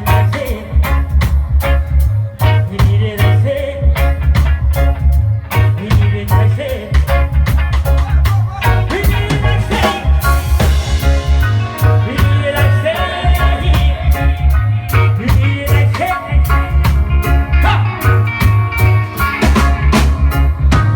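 Live reggae band playing an instrumental passage: a heavy bass line and drum kit drive a steady groove, with keys, guitar and a melody line over the top.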